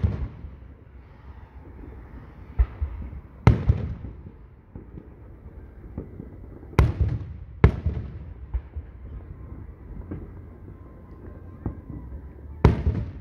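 Aerial firework shells bursting overhead: about five sharp booms spread unevenly, each trailing off in a low rumbling echo.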